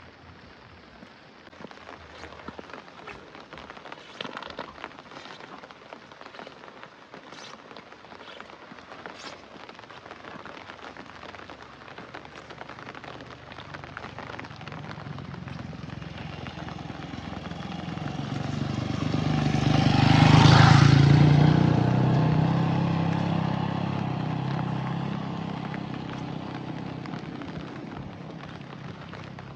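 A motor vehicle approaches through steady rain, passes close about twenty seconds in, and fades away, its engine and tyres on the wet road heard over the rain.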